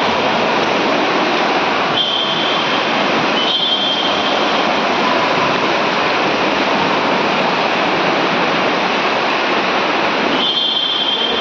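Continuous splashing of several swimmers' freestyle kicks and arm strokes, echoing in an indoor pool hall, with a few brief high-pitched tones over it.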